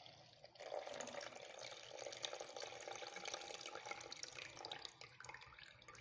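Buttermilk pouring off freshly churned butter from a tilted pot into a plastic measuring jug. It is a faint, steady trickle that starts about half a second in and tapers off near the end, as the liquid is drained from the butter.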